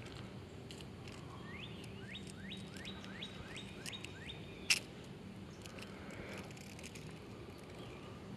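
A songbird sings a quick run of about eight rising whistled notes, starting about a second and a half in. Just after the song, a single sharp click.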